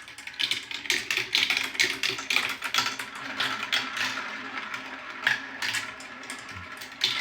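Several marbles rolling and clattering down a marble-run track: a dense, irregular patter of small clicks and knocks.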